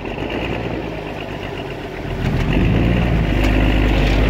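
Off-road vehicle's engine running under load in mud, growing louder about halfway through.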